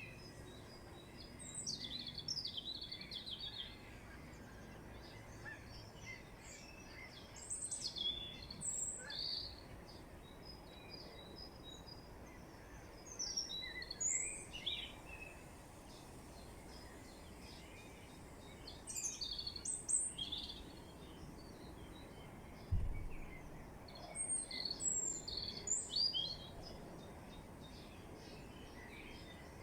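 Wild songbirds singing and chirping in short bursts of high calls and whistles, with pauses of a few seconds between them, over faint background noise. A single brief low thump sounds about three quarters of the way through.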